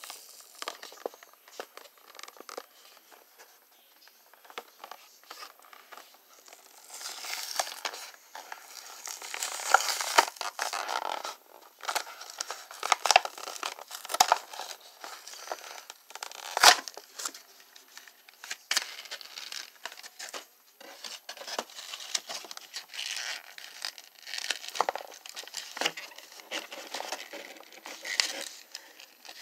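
Cardboard toy box and clear plastic packaging handled by hand as an action figure is unboxed: irregular crinkling, rustling and tearing with scattered sharp clicks and snaps, busier and louder from about seven seconds in.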